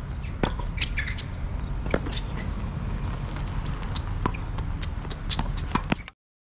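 Tennis ball being hit back and forth on an outdoor hard court: sharp racket strikes and ball bounces every second or two, with a few short high squeaks, over steady background noise. The sound cuts off suddenly near the end.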